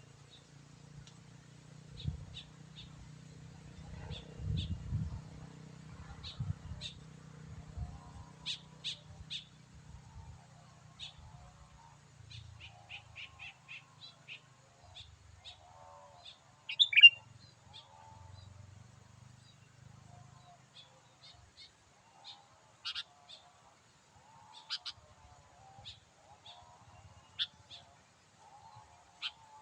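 Sooty-headed bulbul calls: a steady run of short chirps, with one loud sweeping call about seventeen seconds in. A low rumble runs under the first twenty seconds.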